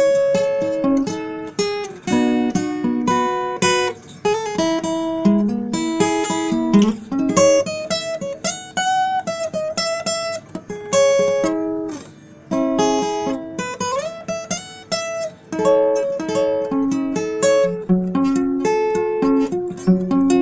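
Acoustic guitar playing an instrumental piece in F, with plucked melody notes over chords and a few sliding notes partway through.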